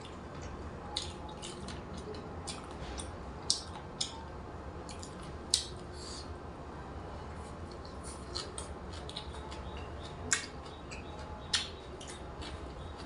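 A person eating close to the microphone: scattered wet chewing and mouth smacks, with a few sharper clicks every second or two over a low steady hum.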